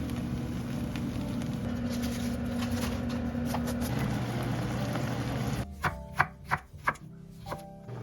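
Knife chopping on a cutting board: about four sharp chops in quick succession in the second half, with a fainter one just after, over a steady low hum.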